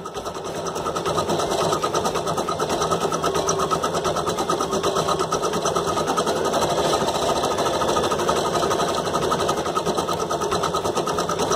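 Brother BP1430L computerized embroidery machine stitching out a design, its needle running in a fast, even rhythm.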